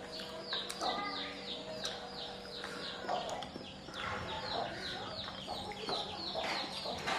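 Chickens calling: a steady run of short, high, falling peeps, several to the second, with a few softer lower clucks.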